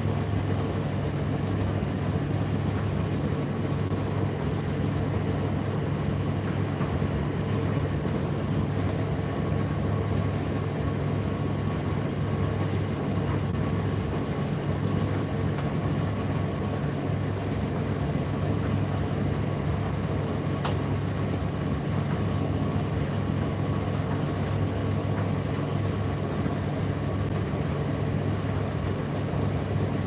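Indesit IDC8T3 8 kg condenser tumble dryer running mid-cycle with a steady low motor hum, with one brief click about twenty seconds in.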